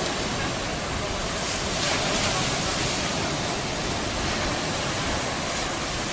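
Mediterranean Sea waves washing onto a sandy beach: a steady hiss of surf, with a louder wash about two seconds in.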